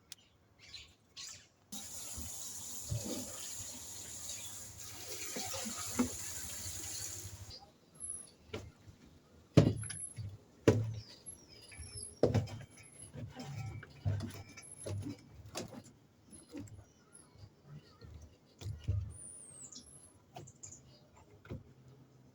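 Water rushing for about six seconds, stopping abruptly, then a run of knocks and clunks from handling, with birds chirping in short high notes.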